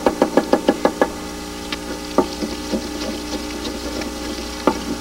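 Chef's knife chopping green pepper on a wooden butcher-block cutting board: a fast run of knife strikes, about seven a second, in the first second, then a few single chops spread out over the rest.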